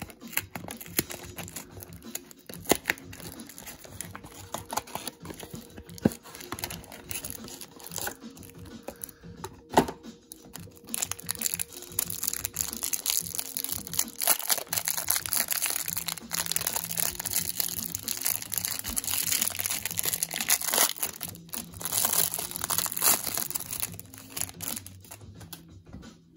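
Trading-card hanger box torn open by hand, with a few sharp cardboard tears and clicks, then the pack's plastic wrapper crinkling and ripping for several seconds as it is peeled off the cards. Soft background music plays underneath.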